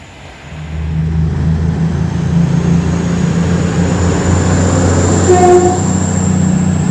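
A train running close past the platform: its engine rumbles low and steady, building up in the first second. A faint high whine rises slowly above it, and a short tone sounds about five seconds in.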